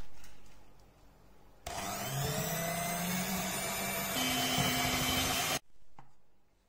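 Polaris electric hand mixer beating softened butter with melted chocolate and Nutella in a glass bowl. It starts suddenly, runs steadily for about four seconds with its pitch stepping up partway through, then cuts off.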